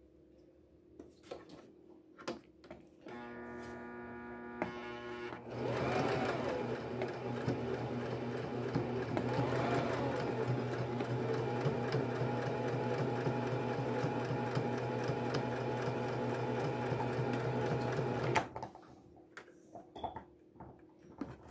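Electric sewing machine stitching through layers of denim. After a few light handling clicks, its motor hums briefly, then runs steadily at sewing speed for about thirteen seconds and stops suddenly.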